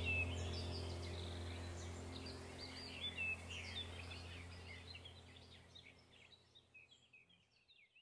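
Birds calling in many short chirps over a low steady hum, all fading out to near silence over the last couple of seconds.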